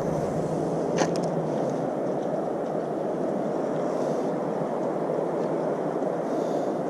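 Steady rushing of river water, with a couple of faint clicks about a second in.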